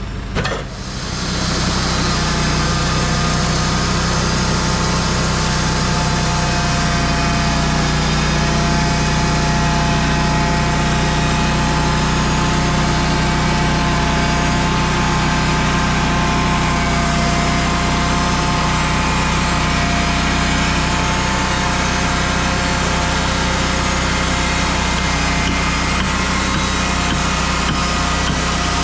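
An engine runs steadily at a constant speed, with a brief loud jolt about half a second in.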